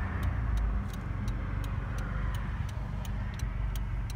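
Honda Civic's engine and road noise heard from inside the cabin as a steady low rumble, with the turn-signal relay ticking evenly about three times a second.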